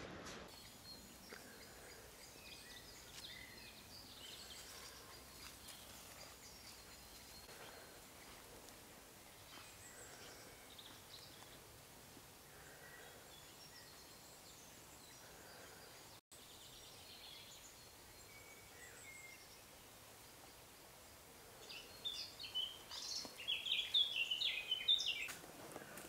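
Faint woodland birdsong, several birds calling at a distance. About 22 seconds in, one bird sings a louder burst of quick high notes for a few seconds.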